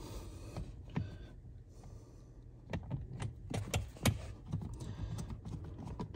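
Phillips screwdriver driving two screws back into a car's interior trim, heard as light, irregular clicks and ticks that come thicker in the second half.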